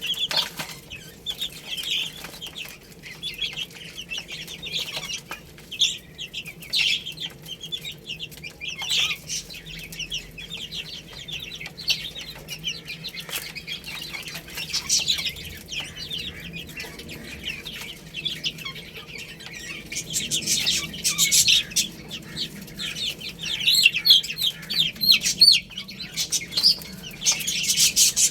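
A group of baby chicks peeping, with many short high chirps overlapping throughout and growing busier in the last third.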